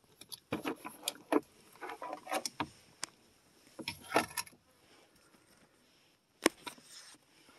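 Irregular clicks, knocks and small rattles of a digital multimeter, its test leads and hand tools being handled on a hard plastic surface, followed by one sharp click about six and a half seconds in.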